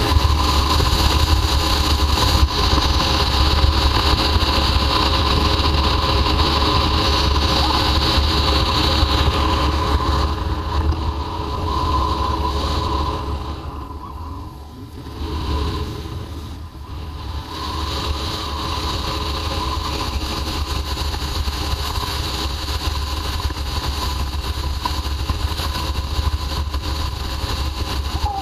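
Royal Enfield Himalayan's single-cylinder engine running at road speed, with wind rushing over the microphone. About halfway through, the sound drops for a few seconds as the bike slows through a bend, then comes back steady.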